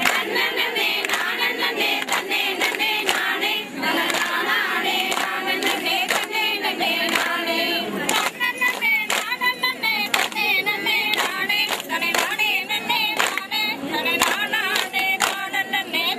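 A group of women and girls singing together in unison, keeping time with rhythmic hand claps.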